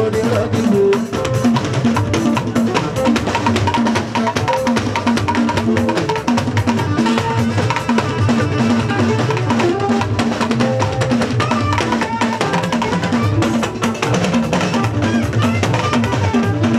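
Live Fuji band playing upbeat music with a steady drum beat and bass, continuous and loud.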